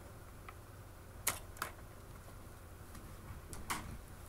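Small hand scissors snipping at the thin antenna wire of a toy RC helicopter: a few short, sharp clicks, a pair about a second in and another pair near the end.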